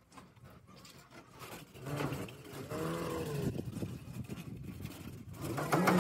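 A motor engine running, rising and falling in pitch once near the middle, starting about two seconds in; it is not the hand sanding.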